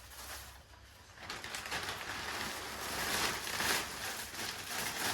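Plastic packaging rustling and crinkling as it is handled, starting about a second in and going on unevenly.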